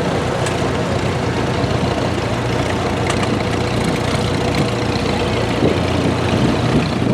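Old farm tractor engine running steadily at a tractor pull.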